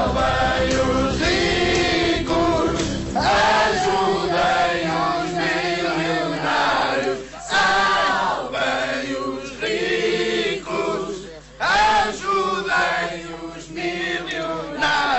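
A choir of voices, mostly male, singing with music.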